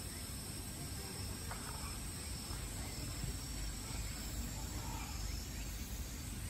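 Outdoor ambience with a faint, steady, high-pitched insect drone over low background noise.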